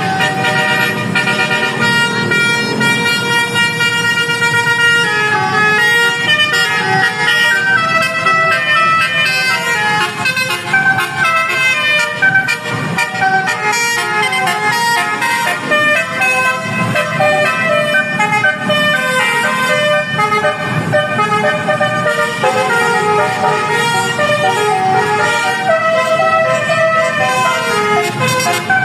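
Telolet bus horn, a multi-trumpet musical air horn, playing a tune: a held chord for about five seconds, then a run of changing notes.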